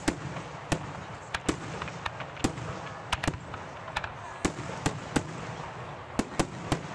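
Fireworks display: aerial shells bursting in a rapid, irregular string of sharp bangs, about two or three a second, over a steady background crackle.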